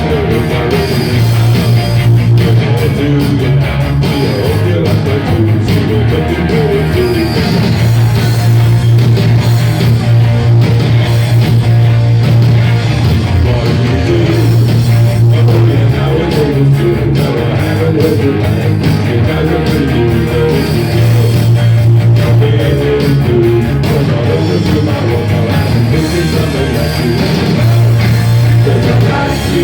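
Loud rock music played live by a band, with guitar to the fore and a deep held bass note changing every few seconds underneath.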